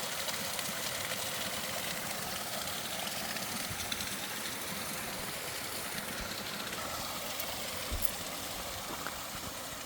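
Creek water splashing over rocks, a steady rushing sound.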